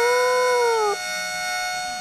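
A dog howling in one long, steady note that lifts slightly, then falls and breaks off about a second in. Under it a held musical chord plays on steadily after the howl stops.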